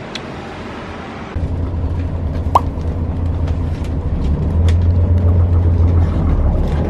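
A steady outdoor hiss, then about a second in a sudden switch to a bus's low engine and road rumble heard from inside the cabin, growing a little louder. A few light clicks sound over it, one with a short falling chirp.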